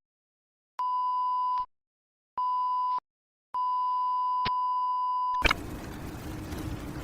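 Electronic beep tone at one steady pitch sounding three times, two short beeps and then a longer one, with dead silence between them. The last beep ends in a click, and a steady noisy background with a low hum comes in.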